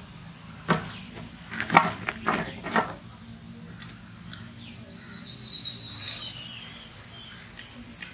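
A metal mesh strainer knocks and clatters several times in the first three seconds as fried pakodas are lifted from the hot oil in an iron kadai. In the second half, birds chirp repeatedly.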